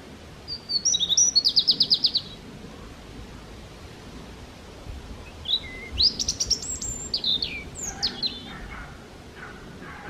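A small songbird singing. It gives a fast trill of about a dozen repeated high notes near the start, then, after a pause, a varied phrase of quick, sweeping high notes.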